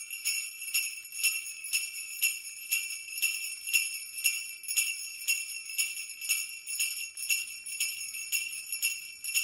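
Sleigh bells shaken in a steady rhythm, about two shakes a second, with a bright ringing jingle.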